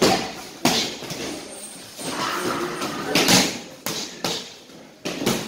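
Boxing gloves striking Muay Thai pads held by a trainer: about half a dozen sharp smacks at uneven intervals, the loudest about three seconds in.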